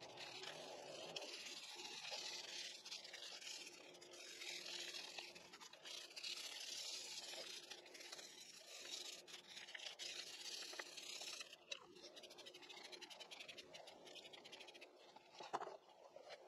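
Faint scrubbing: a stiff brush working degreaser foam over a differential housing in short scratchy spells, with a single sharp click near the end.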